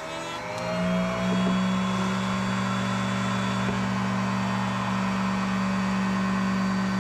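Electric router in a router table spinning up over the first second or so, then running at a steady whine as a wooden panel is fed past the bit to rout out the middle of the cut.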